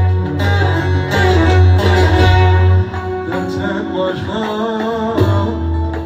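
Live Turkish band music: plucked lute and strings over a heavy bass line, which drops away a little before halfway; from about halfway a man sings with a wavering vibrato over the accompaniment.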